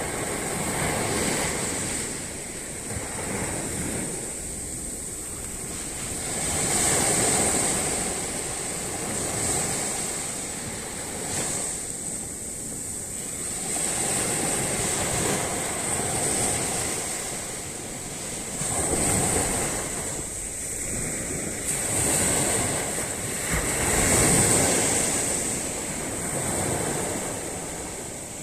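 Ocean waves breaking and washing up a sandy beach, the surf swelling and falling back every few seconds, with a steady high-pitched hiss above it.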